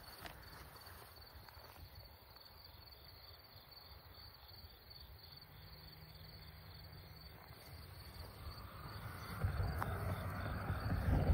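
Insects chirping faintly in a steady, evenly pulsing rhythm over a low outdoor hum. A broader rushing noise swells over the last two seconds.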